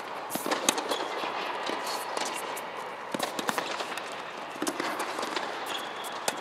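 Tennis rally on an indoor hard court: repeated sharp pops of racquets striking the ball and the ball bouncing, over a steady background hiss.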